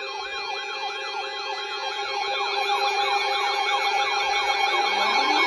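Electronic emergency siren yelping: a fast falling sweep repeating about three times a second over steady alert tones. Near the end a lower tone begins rising in a long wail.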